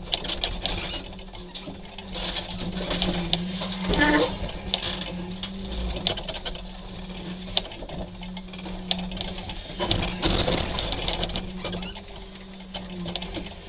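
Hydraulic grab crane at work: its engine and hydraulic pump run with a steady hum while the grab handles a crushed car body, with scattered metal clanks and scrapes and a louder clatter about four seconds in.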